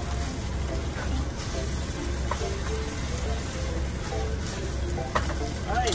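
Chicken and vegetable stir-fry sizzling in a frying pan on a portable gas stove, stirred with chopsticks, with quiet background music and a low steady hum. A sharp click sounds about five seconds in.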